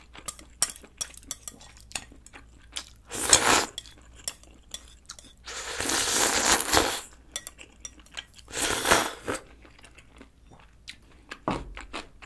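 Noodles being slurped in three noisy bursts, the longest about six seconds in, while eating from the bowl held to the mouth. Between the bursts, chopsticks click and scrape against the bowl.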